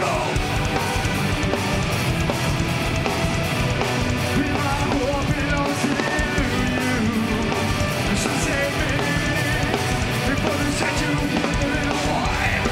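A metalcore band playing live at full volume: distorted electric guitars, bass guitar and a fast drum kit.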